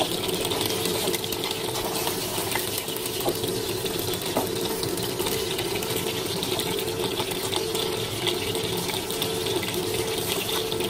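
A whole tilapia shallow-frying in hot oil in a nonstick pan, giving a steady sizzle with a few faint pops of spitting oil, as its second side fries toward golden brown.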